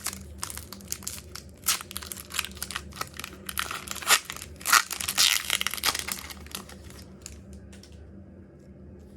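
Foil wrapper of a Pokémon trading-card booster pack being torn open and crinkled in the hands. It is a quick run of sharp crackles that thins out after about seven seconds.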